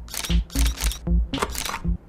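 Background music with a heavy bass beat and sharp, hissing percussive hits several times a second.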